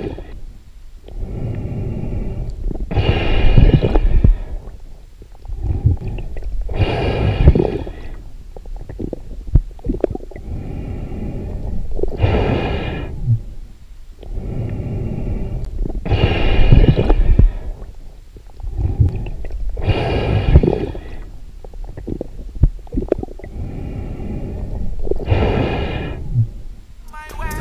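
A diver breathing slowly and evenly through diving gear, a hissing inhale and a rumbling exhale about every four seconds.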